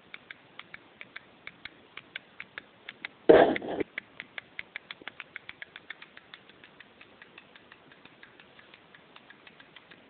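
Pulsed microwave oven transformer rig, switched from a 12 V supply through a microwave door switch: a fast, regular run of clicks, about four to six a second, as the circuit is pulsed. One much louder, short burst comes about three seconds in.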